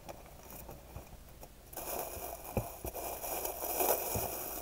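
Gift wrapping paper rustling as a wrapped present is handled, starting about two seconds in, with a few soft knocks.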